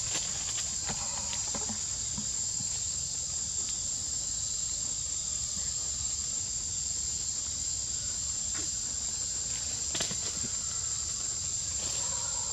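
Steady high-pitched drone of insects, with a few light clicks over it, the clearest about ten seconds in.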